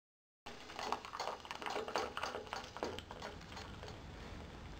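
A quick, irregular run of light taps and clicks that starts suddenly about half a second in and thins out after about three seconds into a faint hiss with a few stray ticks.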